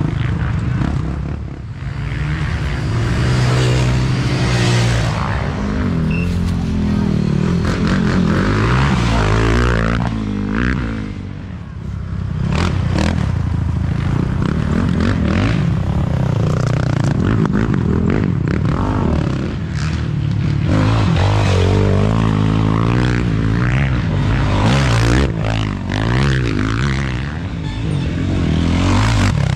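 Quad (ATV) engines racing over a rough dirt course, the revs rising and falling constantly with the throttle and easing off briefly twice. Rattles and knocks from the bumps come through throughout.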